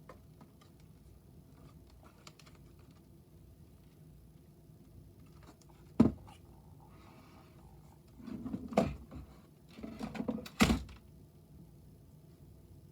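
Hands handling a plastic spool of 3D-printer filament and its packaging: a sharp knock about six seconds in, a brief rustle, then two short bouts of clattering with sharp clicks near the end.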